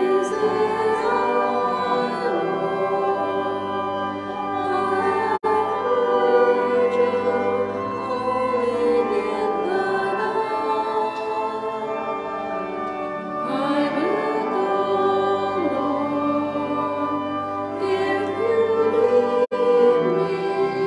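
Hymn music: singing with sustained instrumental accompaniment, the voices gliding between held notes. The sound cuts out for an instant twice, about five seconds in and near the end.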